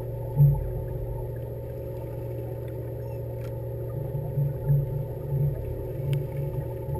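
Fishing boat's engine idling with a steady, even hum, with a few low thumps about half a second in and again in the second half.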